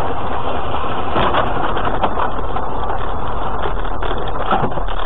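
Car cabin noise from a dashcam on a snowy road: steady engine and road noise. Knocks and rattles come about a second in and again near the end, as the car runs off the road toward the snowy verge.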